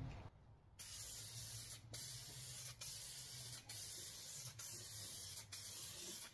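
Aerosol spray-paint can hissing as it sprays, starting about a second in, in long bursts broken by a short pause roughly once a second.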